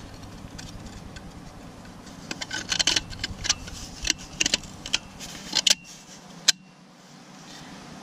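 Light metallic clicks and clinks of a steel snap ring being worked into its groove inside a 4L60E transmission case, ending in one sharp click about six and a half seconds in as the ring seats, over a low steady hum.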